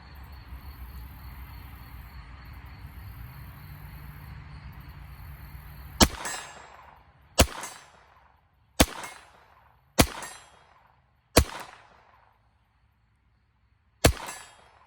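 Walther P22 .22 rimfire pistol firing six single shots, the first about six seconds in and then roughly one every one and a half seconds, with a longer pause before the last; each crack trails off in a short echo. Before the shooting there is only a steady low background hum.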